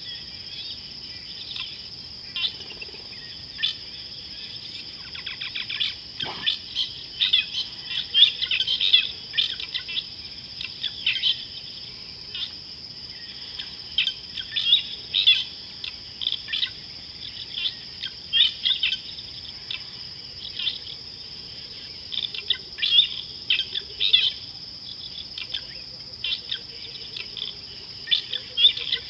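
Wild birds calling in repeated short bunches of high chirps over a steady, high-pitched insect drone.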